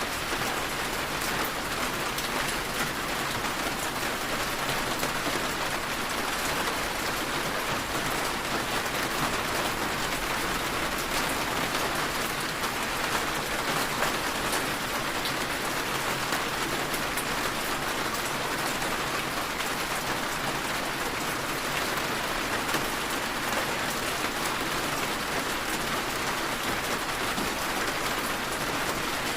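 Steady rain falling and pattering, with fine scattered drops tapping, a constant soft hiss.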